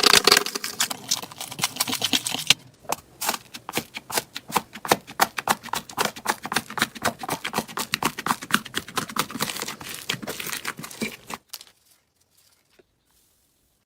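Slime being squeezed and pressed by hand close to the microphone, making dense crackling and clicking, very thick at first and then a quick run of separate crackles. It stops about three-quarters of the way in, leaving near silence.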